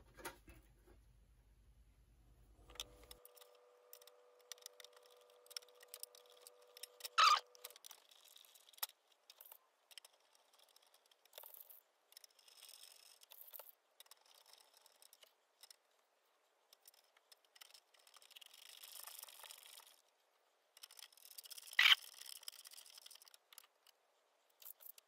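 Faint clicks, taps and light rattles of small plastic parts and hardware being handled on a workbench, with two sharper clicks, one about seven seconds in and one near the end.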